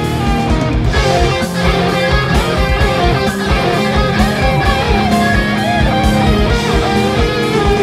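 Heavy rock music: distorted electric guitar riffing over a drum beat with rapid, steady kick-drum hits.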